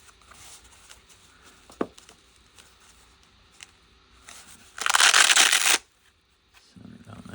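Plastic case and packaging being handled: light clicks and rustling, a sharp click a little under two seconds in, then a loud scraping rustle lasting about a second, about five seconds in.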